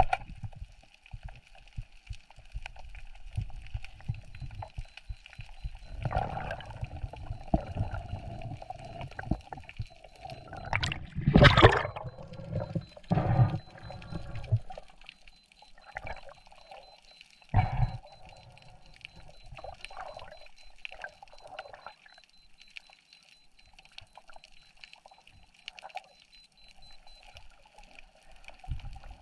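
Underwater recording of water moving and gurgling around the diver, muffled and uneven, with a loud sudden thud about eleven seconds in and smaller knocks after it. A faint steady high whine runs under much of it.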